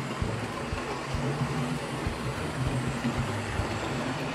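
Hornby OO gauge model of the A1 steam locomotive Tornado running along the track with its coaches: a steady motor hum with short clicks about twice a second from the wheels on the rails.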